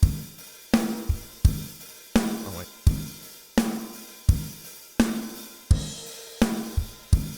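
A recorded acoustic drum kit plays a steady beat, kick and snare alternating about every 0.7 s under cymbals and hi-hat. It is played back through the Avalon 747 plugin's compressor while its threshold is being moved to bring in gain reduction.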